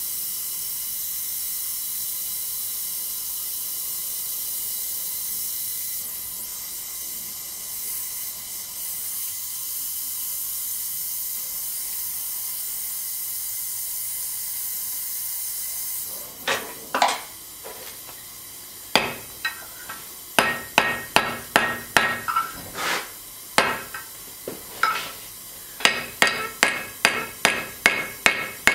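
Oxy-acetylene torch hissing steadily, then shut off a little over halfway through. A hammer then starts striking the torch-heated steel on the anvil: a few scattered blows, then a quick, even run of ringing strikes, two to three a second.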